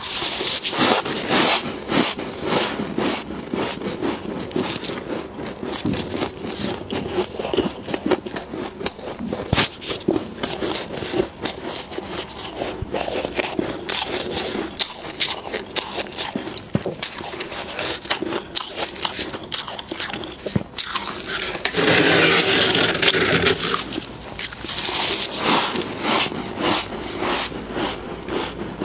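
Freezer frost crunching as it is bitten and chewed, along with gloved hands scraping frost off the walls of a chest freezer. A long run of sharp crunches and scrapes, denser and louder about three-quarters of the way through.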